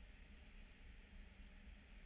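Near silence: faint steady room tone with a light hiss.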